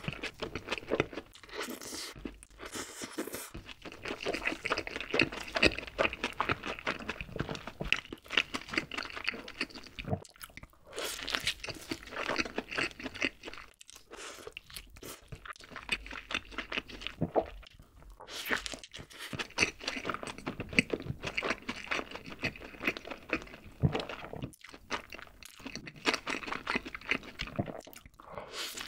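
Close-miked eating of a burger: bites into the bun and filling, then steady wet chewing with many small crackles and clicks. The chewing comes in runs broken by a few brief pauses.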